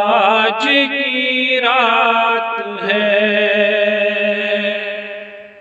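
A man singing a naat solo, with no instruments, drawing out the end of the line in wavering ornamented turns, then holding one long note from about three seconds in that fades away at the end.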